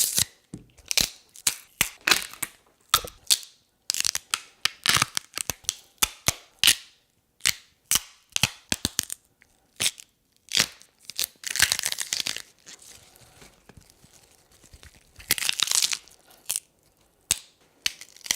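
Celery stalks snapped, twisted and torn as bone-breaking foley: an irregular string of sharp cracks and crunches, with two longer tearing crunches about two-thirds of the way in and again near the end.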